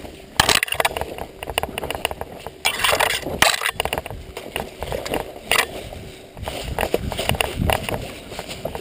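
Footsteps, rustling and crunching as someone pushes through dry brush and branches on loose dirt. A few sudden louder cracks and scrapes stand out among them.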